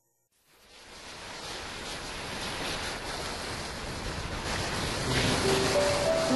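Recorded ocean surf fading in, a steady wash of waves that grows louder; about five seconds in, slow sustained music notes begin over it.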